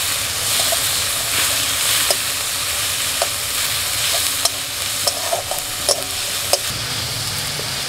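Chopped tomato and ginger paste sizzling in hot mustard oil in a metal kadai while being stirred with a spatula, with occasional sharp clicks over a steady hiss.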